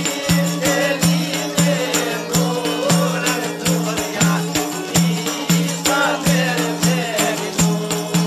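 Live folk music with a fast, regular drum beat over a steady low drone and a wavering melody line.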